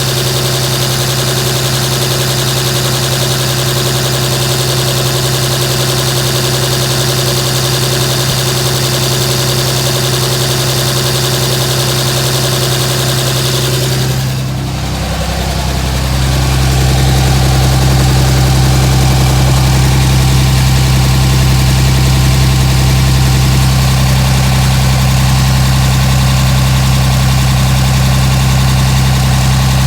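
A 2007 Dodge Ram's 5.9 Cummins inline-six turbodiesel idling with a rough idle. About halfway through the sound shifts and becomes louder and deeper.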